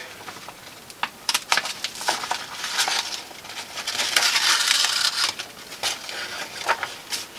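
A sheet of paper crackling and rustling as it is handled and bent while it is stitched with needle and thread, with scattered sharp clicks and a denser rustle around the middle.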